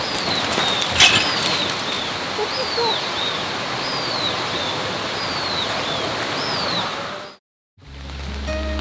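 A bird calling over and over, one short arched note about once a second, over a steady outdoor hiss. The sound fades out about seven seconds in, and after a moment of silence music starts near the end.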